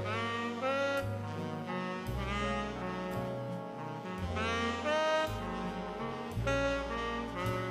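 Jazz music: a saxophone plays a melody with sliding notes over a bass line.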